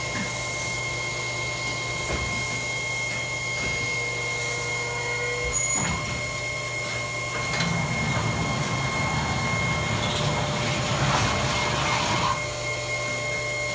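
Thermoformer oven door being operated over the machine's steady electrical hum. There is a knock about six seconds in, then a stretch of about five seconds of mechanical rumble and rushing noise as the door moves.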